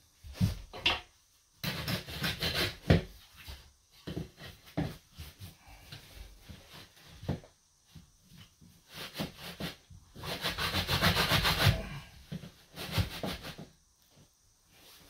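Hand tools scraping and rasping over damp dry-pack sand-and-cement mortar as a shower pan is shaped and screeded to its slope. It comes in a series of rough strokes, the longest and loudest a little over ten seconds in.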